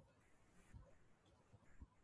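Near silence: faint room tone with a couple of faint, brief low thumps.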